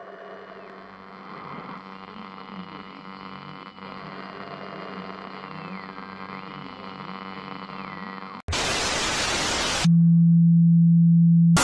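Eerie droning music with a slowly gliding high tone for about eight seconds. It is cut off by a loud burst of static hiss, then a very loud steady low hum, with another short blip of static at the end.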